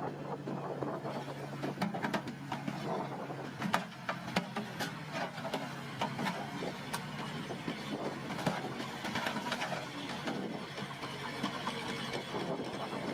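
Diesel engine of heavy earthmoving machinery running steadily, with many sharp clanks and knocks over it.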